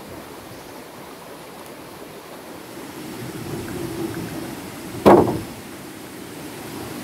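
Steady rushing noise with a single hard knock about five seconds in, the loudest sound, dying away quickly.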